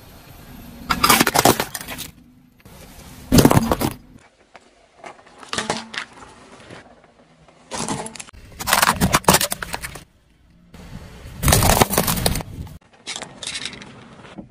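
A car tyre rolling slowly over brittle objects on asphalt, crushing them: about six separate bursts of cracking and crunching a second or two apart, with quieter tyre-on-asphalt rolling between them.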